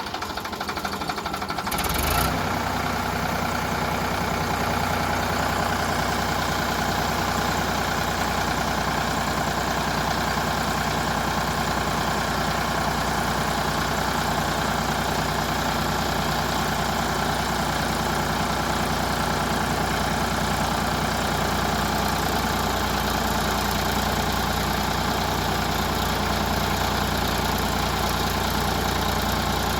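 Heavy diesel engine running steadily, with a short knock about two seconds in, after which it is louder and even.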